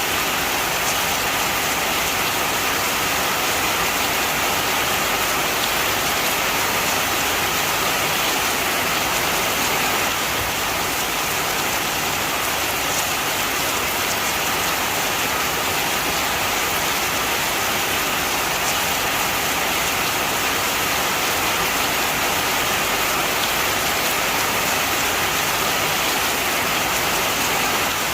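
Heavy rain falling steadily, a dense, even hiss of rain with no breaks or distinct drops standing out.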